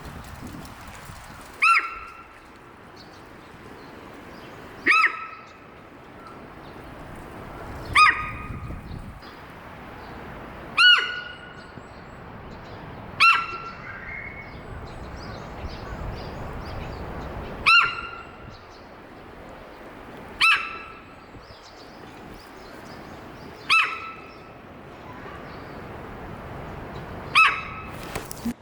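Female Ezo sika deer (Hokkaido sika) giving her alarm call: a loud, short, high-pitched squeal repeated nine times, roughly every three seconds. The call is a warning that she is alert to something.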